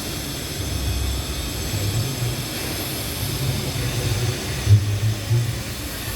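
Low rumble of a heavy vehicle's engine, with two short louder bumps about five seconds in; no horn sounds.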